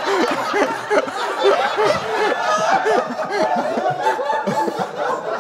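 Several men laughing together, short overlapping chuckles and snickers running throughout, with a few half-spoken sounds mixed in.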